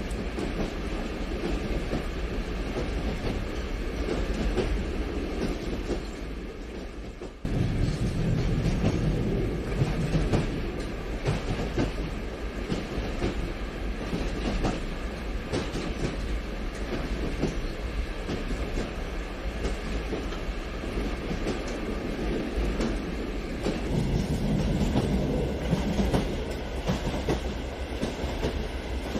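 HO-scale model passenger train rolling along the track: a steady clatter of wheels over the rail joints. The sound dips, then jumps back up abruptly about seven seconds in.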